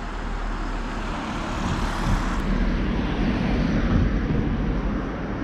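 Street traffic noise: a motor vehicle passing close by, its rumble and tyre hiss swelling to a peak about four seconds in and easing off near the end.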